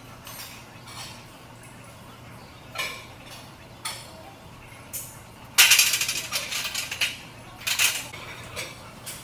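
Steel barbell and weight plates clinking and clanking: several sharp clinks, then a loud rattling clatter a little past halfway, and another clank near the end.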